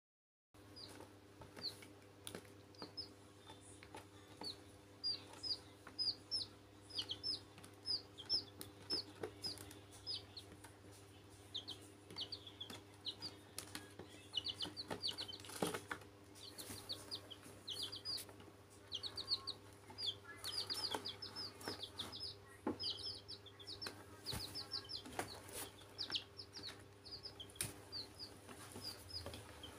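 Young chicks peeping in quick runs of short, high chirps, with scattered sharp clicks over a steady low hum.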